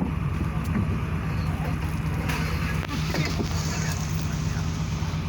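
An engine running steadily with a low, even hum, with faint voices in the background.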